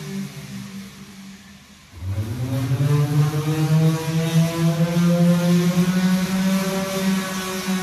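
Electric sander running against a steel shipping-container wall to take off sticker residue: its motor winds down and goes nearly quiet, then starts up again about two seconds in, rising in pitch to a steady whine that holds to the end.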